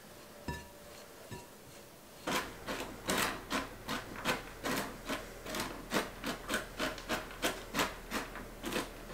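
Wooden spoon stirring a stiff almond-flour cookie dough in a mixing bowl: rhythmic scraping strokes, about two and a half a second, starting about two seconds in.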